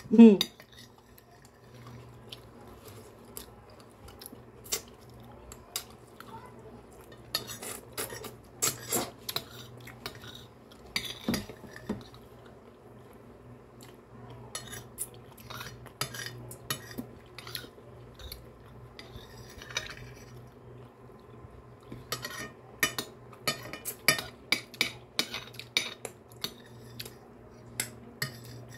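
Metal spoon clinking and scraping against a glass bowl during a meal, in scattered sharp clicks that come thicker near the end.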